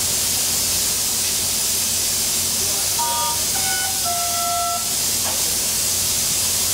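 Steady hiss of air from a standing passenger train, even and high-pitched throughout. About three seconds in, a short run of clear tones steps through several pitches for under two seconds.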